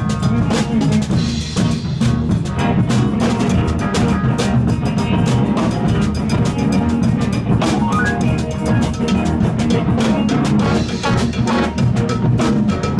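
Live soul band playing an instrumental groove: drum kit driving a steady beat over bass and electric guitar, with the saxophones and trombone playing by the end.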